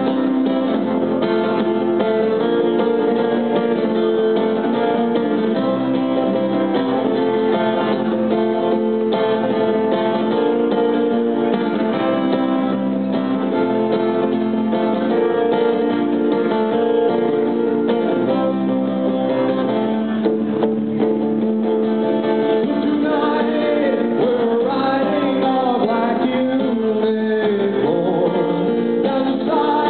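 Acoustic guitar played through a song, with a voice singing over it in the last few seconds.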